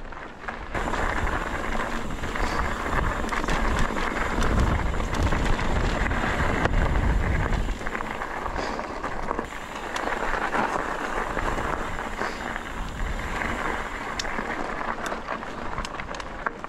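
Mountain bike tyres rolling over dirt and gravel, with small clicks and knocks from the trail and bike, and wind buffeting the microphone, heaviest in the first half and cutting off suddenly about eight seconds in.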